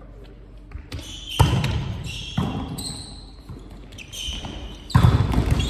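A volleyball being struck during a rally: three sharp hits, about a second apart and then after a longer gap, the last near the end the loudest, each ringing on in the echo of a large sports hall.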